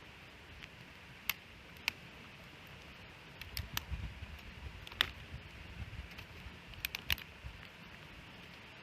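Wood fire burning with a steady hiss and sharp, irregular crackles and pops, about eight in all. A low rumble comes and goes through the middle.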